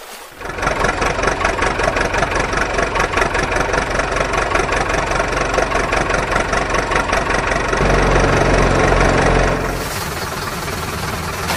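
Engine running with a rapid, even knocking rhythm. About eight seconds in it turns deeper and louder, then eases off near the end.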